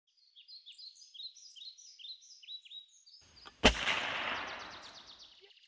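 Songbirds chirping in quick repeated notes, then a single gunshot about three and a half seconds in whose echo trails off over the next second or two.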